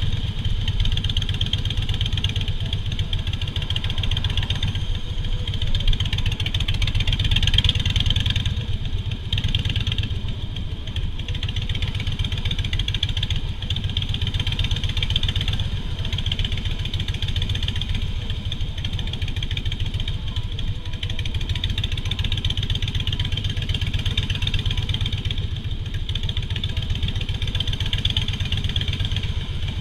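Harley-Davidson Softail Standard's air-cooled V-twin engine running steadily, swelling a little about six to eight seconds in.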